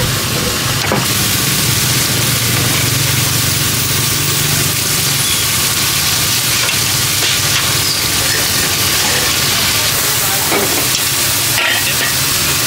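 Mee goreng noodles sizzling and frying in a hot wok while a metal spatula and ladle stir and toss them, with a few sharp metal clinks of the utensils against the wok.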